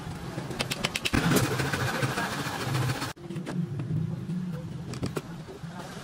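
An engine running steadily, with a few sharp taps of a hand tool on wood.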